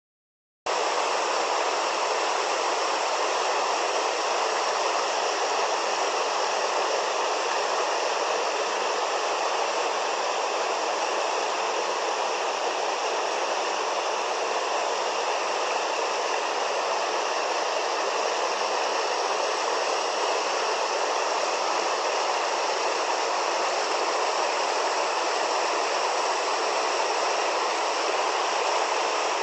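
River water rushing steadily: an even, unbroken hiss that starts abruptly about half a second in.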